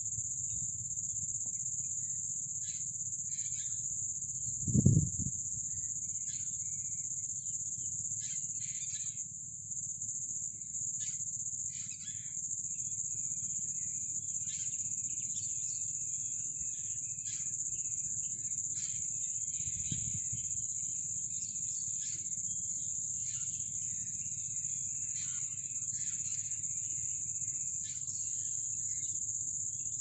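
A steady, high-pitched insect drone from crickets or similar insects, with birds chirping and calling on and off over it and a low rumble underneath. A brief low thump about five seconds in, and a fainter one about twenty seconds in.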